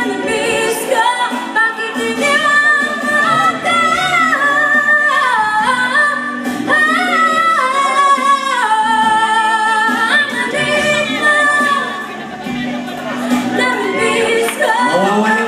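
A woman singing into a handheld microphone over backing music, holding long notes, some of them gliding down in pitch.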